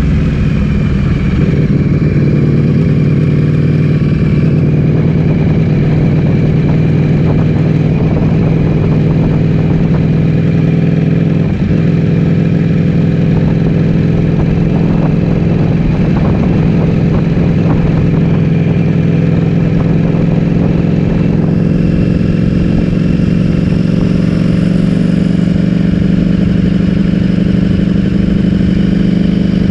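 Ducati Streetfighter V4S's 1103 cc V4 engine through an Akrapovic full-system exhaust, running steadily at an unchanging engine speed with no big revs.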